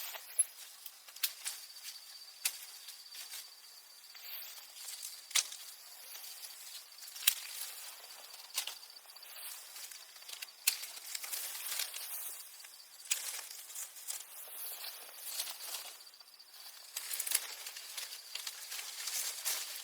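Rustling and irregular sharp snaps and clicks, with a steady high insect buzz underneath.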